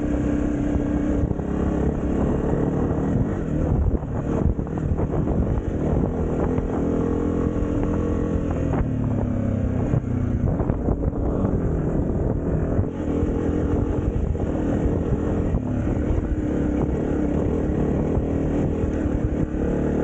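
Dirt bike engine running while riding along a trail, its pitch rising and falling with the throttle and gear changes, most noticeably between about six and ten seconds in.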